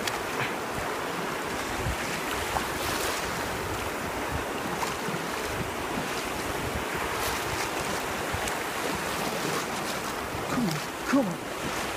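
Shallow surf washing and foaming over a rocky shore, a steady rush of water close to the microphone, with wind buffeting the microphone.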